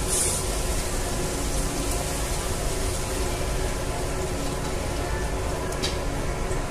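Steady sizzling from a hot pot of sautéed shrimp and garlic as shrimp stock is poured in from a metal bowl, with a light click near the end.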